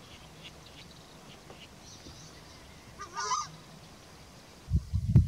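Southern screamer giving one loud, honking call about three seconds in. Near the end a short burst of low thumps is louder than the call.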